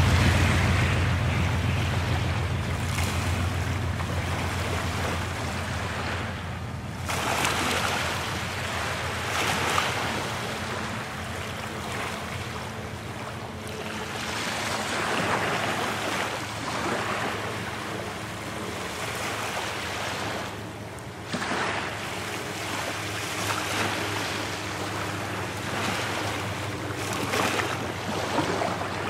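Small waves breaking and washing ashore, swelling and easing every few seconds, with wind on the microphone.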